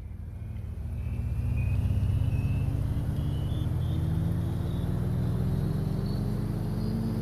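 Background music fading in: a low, sustained synth intro whose tones slowly rise in pitch.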